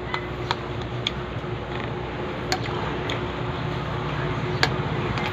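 Eating by hand: several sharp clicks and smacks from chewing and from fingers on the plate, spaced irregularly over a steady background hum.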